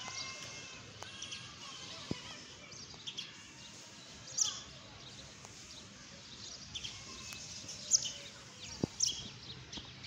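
Small birds chirping in short, high calls scattered throughout, over a steady low background hum of the surroundings, with two faint knocks about two seconds in and near the end.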